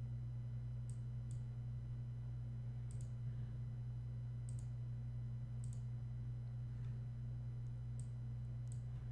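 Steady low electrical hum on the recording, with about seven short computer mouse clicks at irregular intervals of one to two seconds as a text box is resized.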